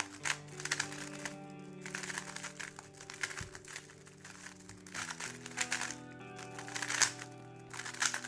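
Rapid, irregular clicking and clacking of a speedcube's layers being turned during a fast solve, over background music of held chords that change about five seconds in.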